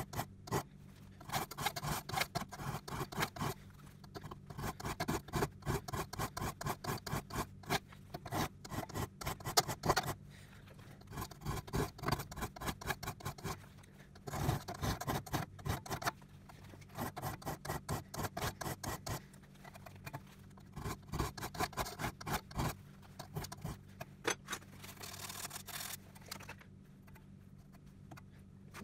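Steel hand file rasping across the teeth of a rusty crosscut logging saw as the teeth are filed, in runs of quick strokes broken by short pauses.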